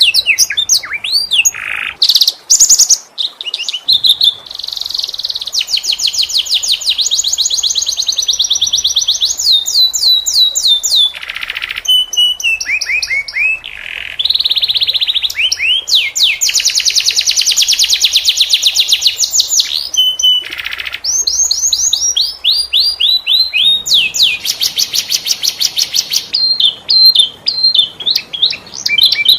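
Domestic canary singing almost without pause: long rolling trills of fast repeated notes that change pitch and pattern from phrase to phrase, with a few short harsh notes.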